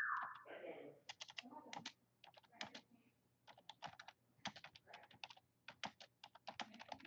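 Typing on a computer keyboard: quiet, quick keystrokes in irregular runs and pauses, with a short vocal sound right at the start.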